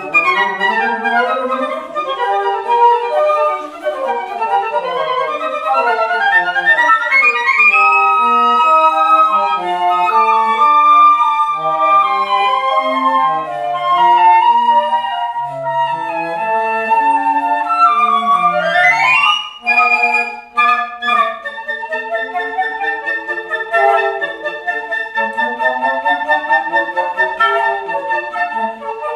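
Flute quartet playing a classical piece: fast running scales and arpeggios passed between the flutes. About two-thirds of the way through, a quick upward run ends in a brief break, then fast repeated figures go on over a held note.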